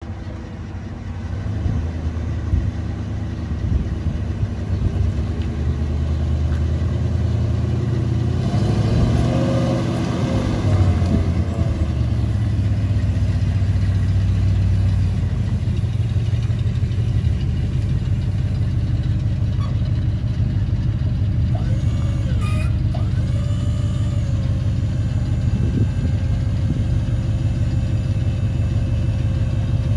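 A 1980 Ford F350 dump truck's 400 cubic-inch gas V8 running, growing louder as the truck drives up, then idling steadily once it stops. A faint steady whine joins near the end.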